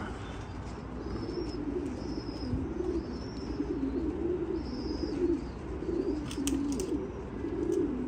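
Domestic pigeons cooing over and over, low wavering coos following one another with hardly a break.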